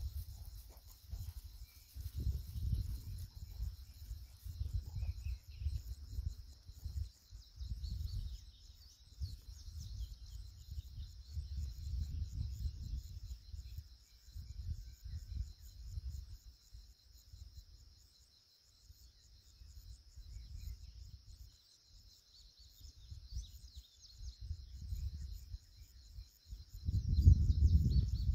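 Steady chirring of insects, with wind buffeting the microphone in low, uneven gusts; the strongest gust comes near the end.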